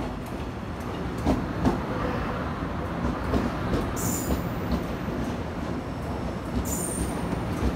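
Taiwan Railways EMU500 electric multiple unit rolling slowly while shunting: a steady low rumble with wheels knocking over rail joints, and two brief high-pitched sounds, one in the middle and one near the end.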